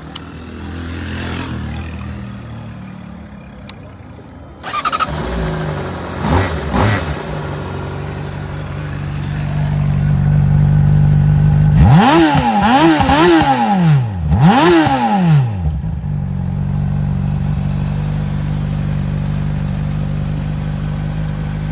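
2008 Honda CBR600RR inline-four engine starting up about five seconds in and settling to a steady idle. A little past the middle it is revved sharply three times in quick succession, then once more, before dropping back to idle.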